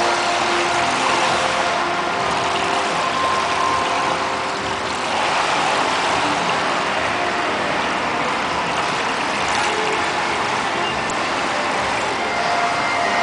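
Steady rushing background noise of an indoor swimming pool hall, with no distinct events.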